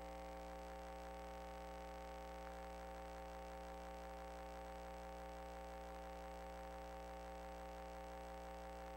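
Steady electrical hum with several steady tones layered together, unchanging in level throughout.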